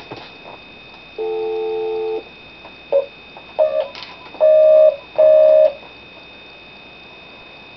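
Electronic beeps from a mobile phone as a number is dialled: one steady tone about a second long, a few short key beeps, then two longer beeps in quick succession.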